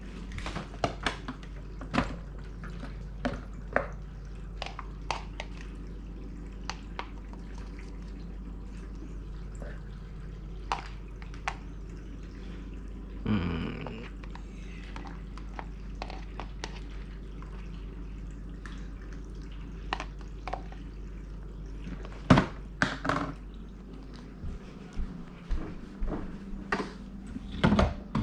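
Kitchen food-prep handling: scattered clinks and knocks of dishes and utensils over a steady low hum, with a short rushing sound about 13 seconds in and a few sharper knocks about 22 seconds in and again near the end.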